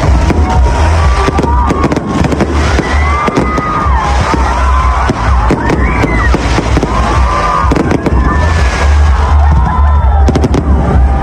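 Fireworks display going off: a dense, irregular run of bangs and crackles over a continuous deep rumble of booms.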